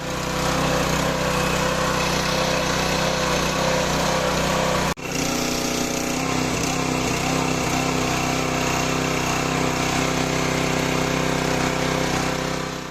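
INGCO GHPW2003 gasoline pressure washer's 6 HP petrol engine running steadily at speed, with a steady hiss over it. The sound breaks off for an instant about five seconds in and then carries on.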